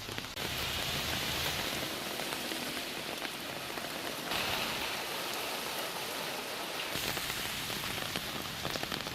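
Heavy rain pouring down, a dense steady hiss with scattered drops striking surfaces; the rain sound shifts abruptly about a third of a second in, again around four seconds and around seven seconds.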